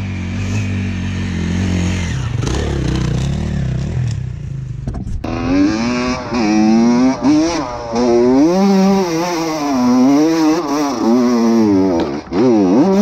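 A dirt bike's engine running steadily, heard from off the bike. After a sudden cut about five seconds in, a Honda CR85 two-stroke is heard from on board, revving up and down again and again as it is ridden.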